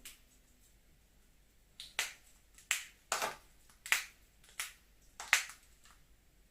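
Pet crow making a string of sharp snapping clicks, irregularly spaced and some in quick pairs, from about two seconds in. This is the odd noise the crow has suddenly begun to make; the owner does not know how it produces it.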